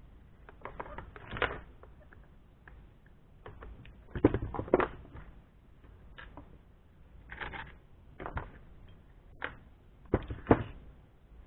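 Parts of a partly stripped Stihl 029 chainsaw being handled on a workbench: scattered clicks and knocks of plastic and metal, loudest about four seconds in and again near the end.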